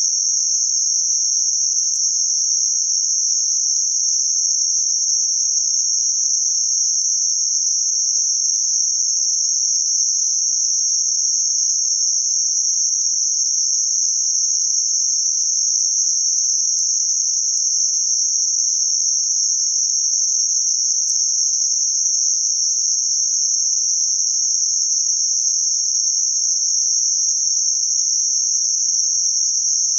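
Synthetic band-limited noise centred around 6051 Hz: a steady, unchanging high-pitched hiss with nothing below or above a narrow band.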